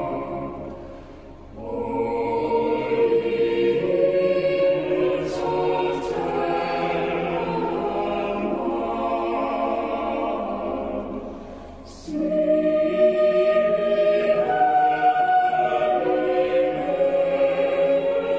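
A choir singing a slow melody in long held notes. The phrase breaks off briefly about a second and a half in and again near twelve seconds, where the singing comes back louder.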